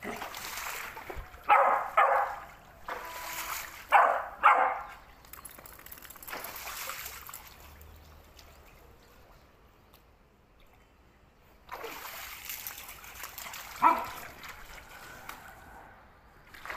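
A beagle barking in short calls: two quick pairs in the first five seconds and one more later on. Between them, stretches of splashing hiss from the wet ground.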